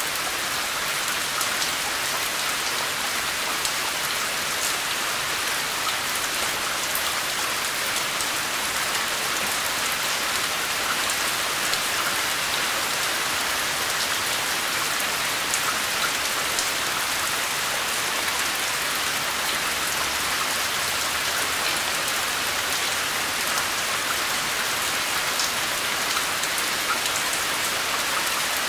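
Steady rain falling on a surface, an even hiss with many fine drop ticks and no thunder.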